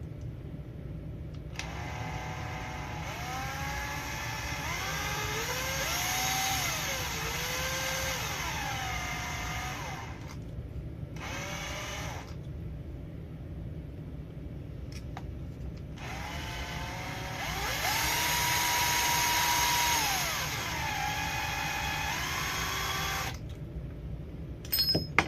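Power drill running in three bursts, the first about eight seconds long, the second brief, the third about seven seconds long, its whine rising and falling with trigger speed, drilling holes in the RC crawler's frame rails. A few sharp clicks near the end.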